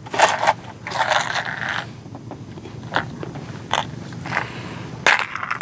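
Close handling noises: two short scraping rustles, then four sharp clicks about two-thirds of a second apart.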